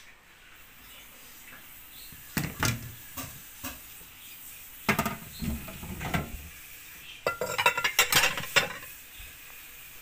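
Glass dish and plates being set into a plastic dish-drying rack: clinks and clatters in several short bursts, with a quick run of clattering about three-quarters of the way through.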